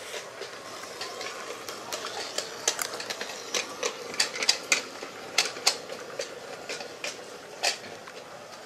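Large-scale toy train running on its track: a steady motor whir with irregular clicking from the wheels and rail joints, loudest in the middle as the train passes close.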